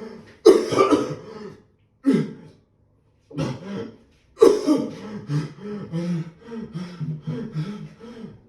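A man's staged coughing fit, faked as coughing up blood: several harsh separate coughs, then from about four and a half seconds in a loud cough followed by a string of short voiced hacking coughs, about two a second.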